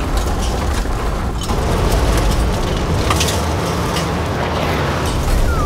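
Ford Bronco driving fast over a dirt track: a steady low rumble of engine, tyres and wind, with scattered sharp ticks of stones and grit.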